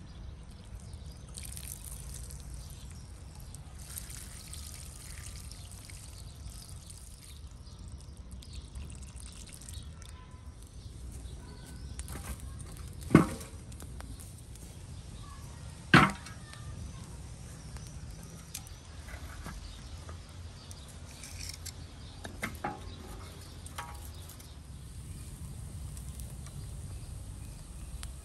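Water trickling and pouring, with a steady low rumble underneath. Two short sharp knocks stand out about halfway through.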